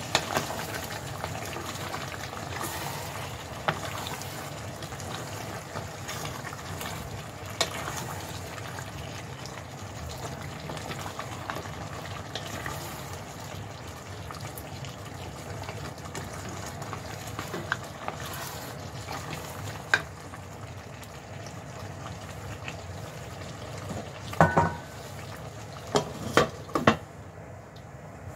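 Beef caldereta simmering in a pot while a wooden spoon stirs it, with scattered knocks of the spoon against the pot. Near the end come several sharp clatters as a glass lid is set on the pot.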